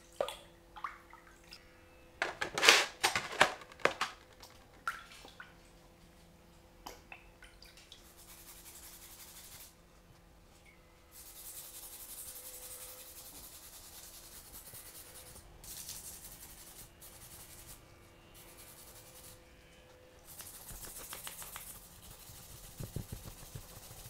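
Water splashing and dripping as a metal pistol barrel is dipped and rinsed in a plastic tub, loudest in the first few seconds. Then a stiff red-bristled brush scrubs the wet barrel in stretches of steady, scratchy strokes lasting a few seconds each.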